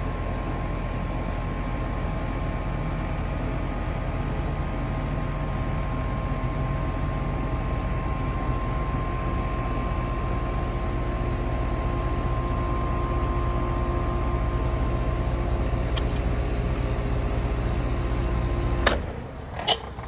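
Heat pump outdoor unit running in heat mode, its compressor and fan giving a steady hum with a thin tone over it. It is running against climbing head pressure from a high-side refrigerant restriction, which the technician puts down to a faulty outdoor TXV. Near the end it cuts off abruptly with a clunk, followed by a lighter click.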